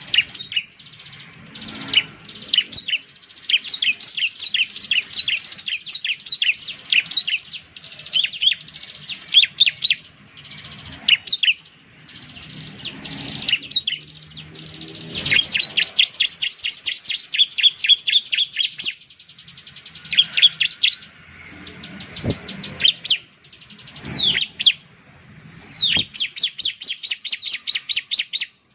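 Bar-winged prinia (ciblek) singing: fast runs of high, sharp chirps repeated in bursts, with short pauses between them.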